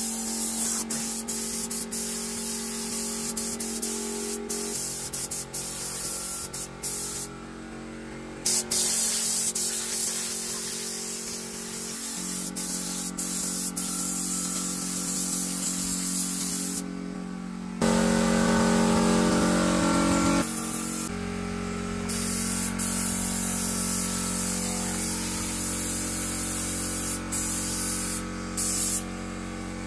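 Compressed-air paint spray gun hissing as it sprays paint, the hiss breaking off briefly a few times as the trigger is let go. Background music with held chords runs underneath.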